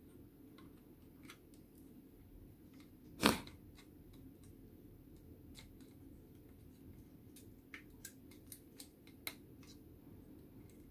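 Plastic scale model truck handled in the fingers: small clicks and taps of plastic parts, one louder knock about a third of the way in, then a quick run of clicks near the end.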